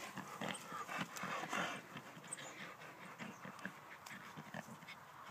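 Boxer dog panting, louder through the first two seconds and then softer.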